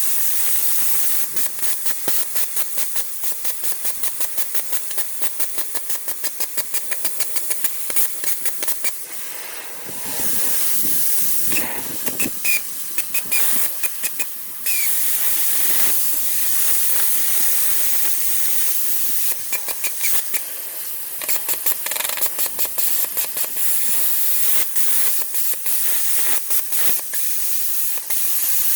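Plasma cutter cutting steel: a steady hiss of compressed air through the torch with a rapid, irregular crackle from the arc.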